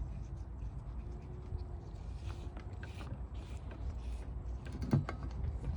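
Light clicks, scrapes and rustles of hands feeding a new pull cord into a lawn mower's recoil starter, with one sharper knock near the end, over a steady low hum.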